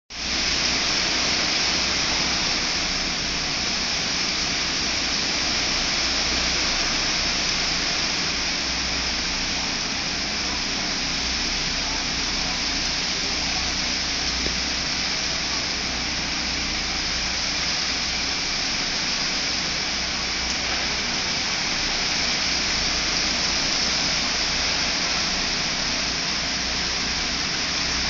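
Heavy tropical-storm rain falling steadily, an even dense hiss, over a low unsteady rumble of wind.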